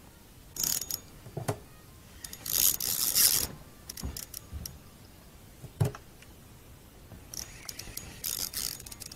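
Fishing tackle being handled: clicks and clinks from a spinning reel and rod, with a few short rustling bursts. The loudest burst comes about three seconds in.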